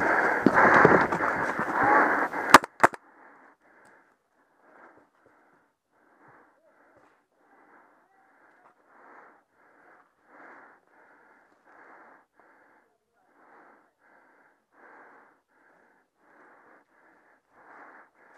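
Loud muffled rustling of a paintball player moving in a bunker. About two and a half seconds in come two sharp pops close together, shots from his paintball marker. Then faint, quick, wheezing breaths come about twice a second.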